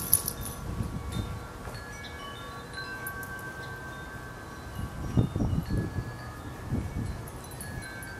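Wind chimes ringing, with long overlapping tones struck now and then. Low gusts of wind buffet the microphone, strongest about five seconds in and again near seven seconds.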